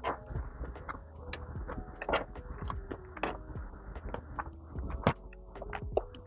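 Close-miked eating: chewing with many irregular wet clicks and crackles, several a second, the loudest about five seconds in.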